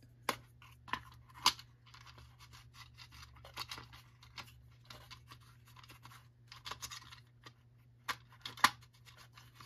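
Plastic recoil starter pulley of a Troy-Bilt TB22EC string trimmer being worked into its plastic housing: scattered clicks and light scraping of plastic on plastic as it is wiggled over the pivot, with the sharpest click near the end. The pulley does not seat, because its spring coil catches on the pivot.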